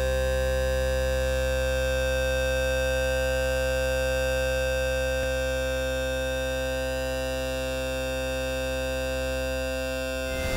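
Electronic drone from a subharmonic instrument modelled on the Subharchord and Mixtur-Trautonium: a dense chord of many steady tones over a deep bass, held unchanging, with a single faint click about halfway through.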